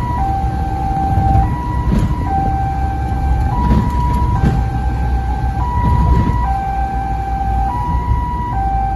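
Two-tone ambulance siren switching between a high and a low note about every second, heard from inside the moving ambulance over engine and road rumble.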